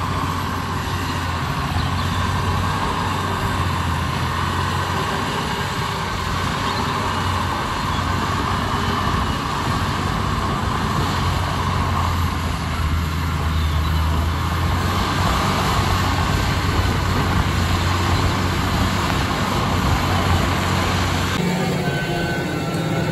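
Tractor diesel engine running steadily under load, pulling a mounted reversible plough through wet, heavy ground. Near the end the sound changes abruptly to the engine heard from the cab.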